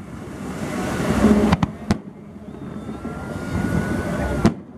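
Fireworks display: two sharp firework bangs in quick succession about a second and a half in, over a steady rumbling background, with a faint thin whistle later on.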